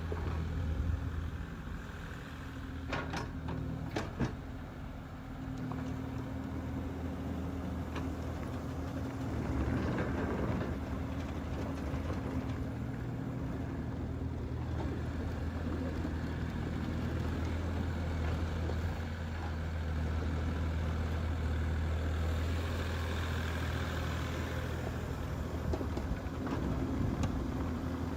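Kubota KX040-4 mini excavator's 40-horsepower diesel engine running steadily, its level rising and falling somewhat at times, with a few sharp clicks about three and four seconds in.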